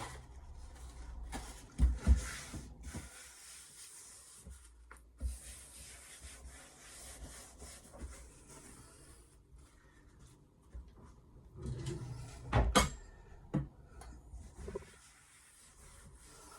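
Steel knife edge rubbed against a whetstone in stretches of scraping strokes, with a couple of sharp knocks from handling, one about two seconds in and one past halfway.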